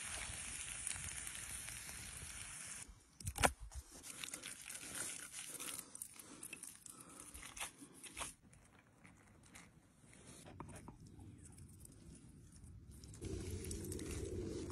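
Soft food-preparation handling sounds: a knife and wooden utensils working raw beef and cooked vegetables on a wooden board. A sharp knock comes about three seconds in, then scattered small clicks and crackles, and a low rumble rises near the end.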